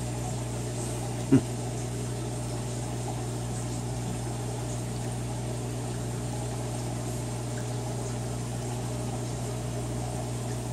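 Aquarium running steadily: a pump's even low hum under a wash of moving water. One short knock sounds about a second and a half in.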